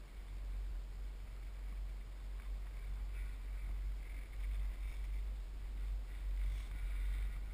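Wind rumbling on an action camera's microphone, a steady low buffeting that swells and dips.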